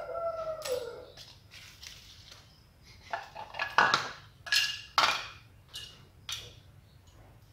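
Hard objects knocking and clinking on a tiled floor as a smashed plastic piggy bank and a hammer are handled: a handful of sharp clacks, some briefly ringing, in the second half.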